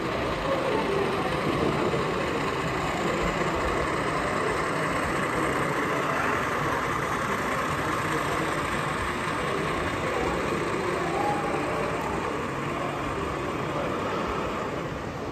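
Steady, echoing din of a crowded exhibition hall, many voices blending into one murmur.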